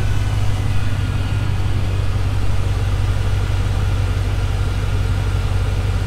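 2000 Chevrolet Tahoe's 5.3-litre LS V8 idling steadily on new spark plugs and plug wires, sounding good, with no misfire.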